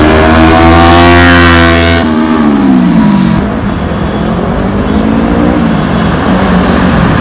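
Kawasaki Ninja 300 BS6's parallel-twin engine through a loud aftermarket exhaust, pulling with a slowly rising pitch. About two seconds in the pitch falls sharply and the sound dulls. It then rises and falls once more before settling into steadier running.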